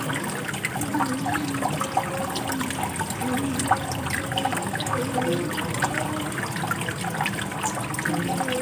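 Running water flowing steadily, with many small splashes and gurgles.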